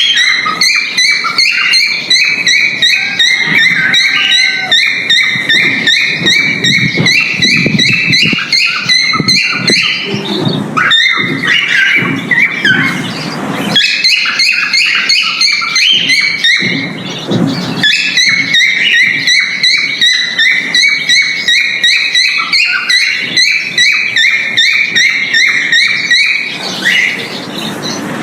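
Male cockatiel's breeding-season mating call: a rapid, continuous run of short chirping whistle notes. The calling pauses briefly a few times, where a rustling noise takes over.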